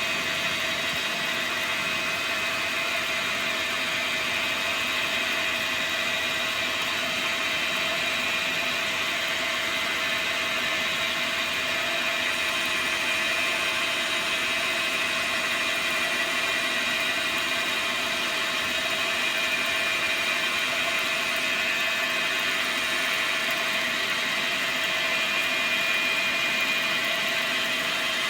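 Dyna Mechtronics DM3000 CNC lathe running steadily, a constant motor whine over an even hiss.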